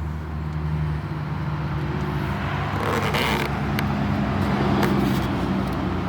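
A vehicle's engine running steadily, with road noise. Its pitch shifts about a second in.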